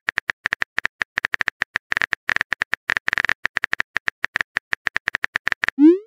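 Typing sound effect: a fast, uneven run of short, high clicks. Near the end comes a brief rising bloop.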